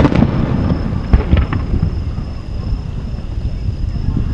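Aerial fireworks display: a firework shell bursts with a sharp bang, followed by a few smaller pops about a second in, over a steady low rumble.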